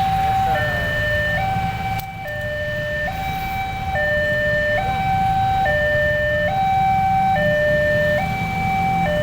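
A bus-style 'telolet' musical horn fitted to a Babaranjang coal train, sounding a steady high-low two-tone pattern whose tone switches a little under every second, over the low rumble of the train.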